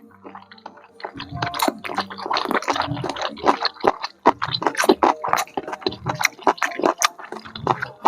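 Close-miked eating of kwetiau noodles and enoki beef: wet chewing and mouth smacks, many in quick succession.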